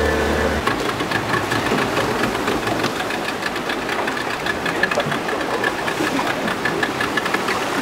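Boat motor idling with a rapid, even knocking pulse over a steady wash of noise.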